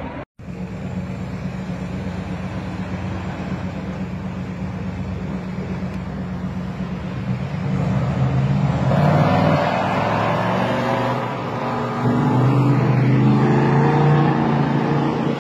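Vehicle engines on a street as cars and heavy trucks drive past, steady at first and louder from about eight seconds in, with engine pitches shifting up and down. The sound cuts out for a moment near the start.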